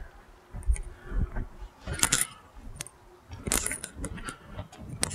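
Footsteps crunching on loose gravel, with a metallic jingling at every few steps.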